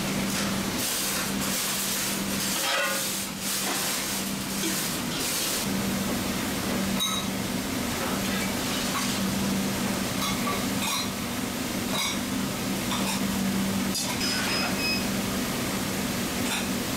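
Shallow metal pan of seafood and chicken tteokbokki simmering and steaming, its metal lid lifted off at the start, with a steady hiss that is strongest in the first few seconds. A steady low hum runs under it, and scattered clinks of metal on the pan come through.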